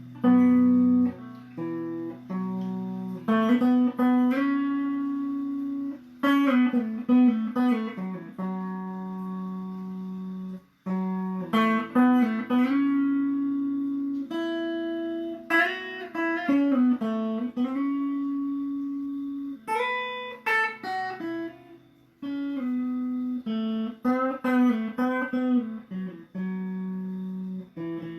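Instrumental guitar music without singing: plucked notes and chords over held low notes.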